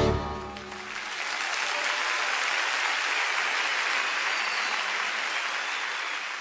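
An audience applauding after a song. The band's final notes die away in the first second, then the clapping swells and holds steady.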